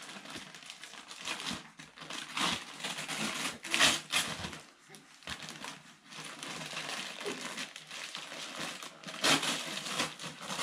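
Tissue paper and a paper gift bag rustling and crinkling as a present is pulled out of the bag by hand, with louder crackles about four seconds in and again near the end.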